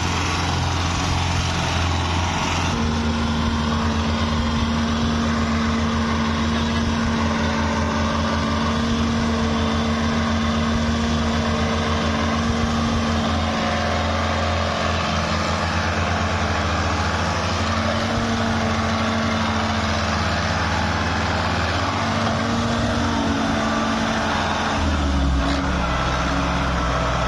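Belarus tractor's diesel engine running hard under load while pulling a trailer heaped with sugarcane out of soft ground. The engine sound is steady, with a shift in engine pitch near the end.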